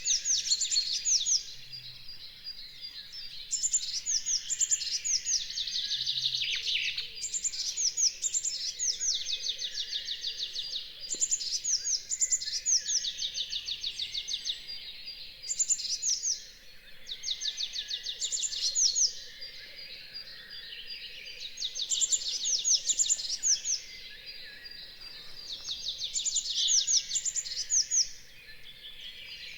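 Dawn chorus of songbirds: high, fast trilled song phrases of rapid falling notes repeat every two to three seconds, several singers overlapping.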